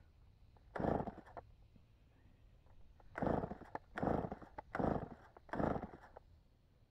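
Chainsaw being pull-started over and over without catching: five short yanks of the recoil starter, one about a second in and then four in quick succession.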